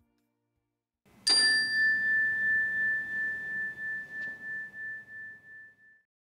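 A struck chime rings once about a second in: one clear high tone that fades slowly, pulsing in loudness as it dies away over about five seconds.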